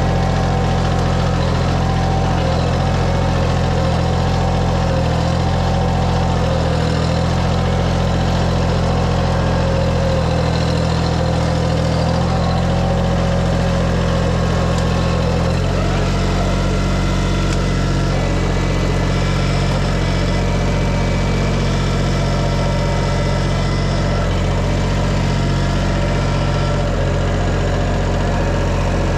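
Engine running steadily at a constant speed, its note shifting slightly about halfway through.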